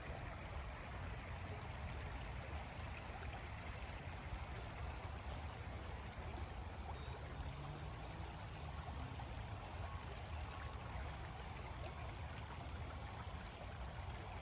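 River water running steadily, an even rushing.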